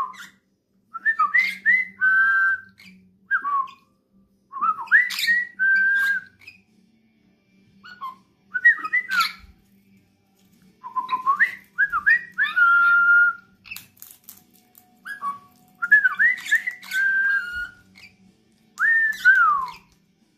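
Whistling traded between a person and a pet dusky pionus parrot: repeated short phrases, each a quick up-and-down flourish ending in a held note, with pauses of a second or two between them; the last, near the end, slides down in pitch.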